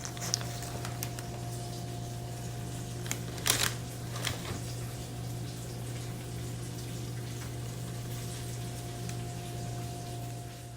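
A steady low hum with a fainter, higher steady tone, a few scattered clicks, and a short rustling burst about three and a half seconds in.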